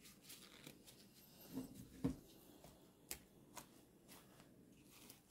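Faint handling sounds of a wooden spoon and gloved hands pressing dressed lettuce down in a plastic container: soft rustling with scattered light taps, the loudest a knock about two seconds in.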